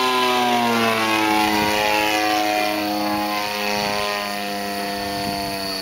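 Motor and propeller of a large radio-controlled Edge aerobatic plane buzzing in flight, a steady many-toned drone whose pitch slides slowly lower and fades slightly over a few seconds.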